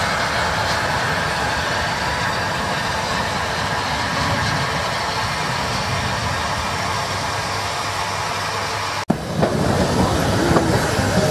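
Corpet-Louvet No. 75 steam tram locomotive running along the track with its train, a steady noise with no clear beat. About nine seconds in it breaks off abruptly and gives way to a louder, more uneven mix of sounds with short pitched traces.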